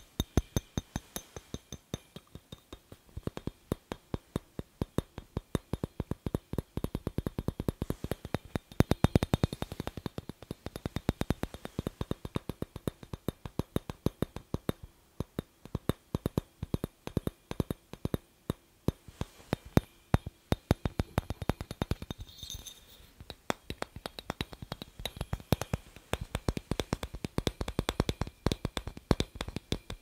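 Fingers tapping fast on a clear glass light bulb: a rapid, uneven stream of sharp clicks with a faint glassy ring.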